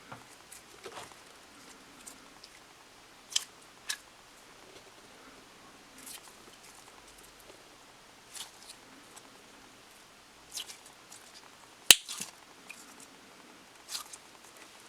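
Slime being handled: scattered short sticky clicks and pops, about seven of them spread out, the sharpest one a little before the end.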